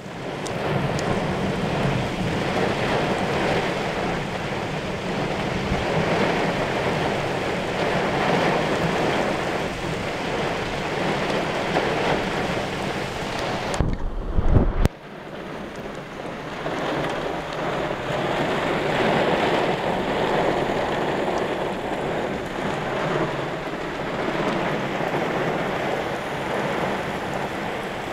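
Heavy rain and gusting storm wind in a thunderstorm, a steady dense hiss. About halfway through, a brief loud low rumble of wind buffeting the microphone stops suddenly.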